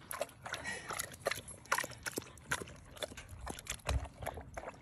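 Dog lapping water from a metal bowl: a quick, irregular run of short wet laps, several a second.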